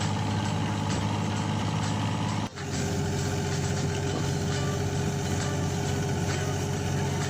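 An engine running steadily with a low, even drone. It cuts out sharply about two and a half seconds in and resumes at once with a slightly different tone.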